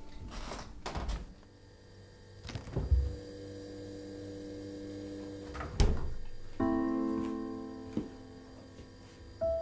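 Dull thunks of a refrigerator door, a heavy low one about three seconds in and a sharp one nearly three seconds later, with a few lighter knocks around them. Sparse score music runs underneath, with held notes and a chord that enters just after the second thunk and fades.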